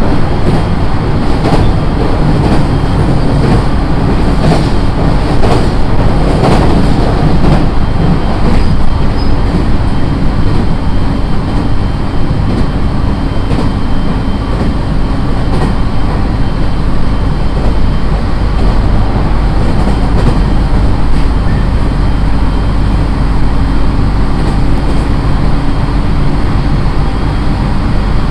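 JR East 701 series electric train heard from inside the car while running: a steady rumble of wheels and motors. In the first several seconds the wheels knock over rail joints about once a second, then the ride smooths out.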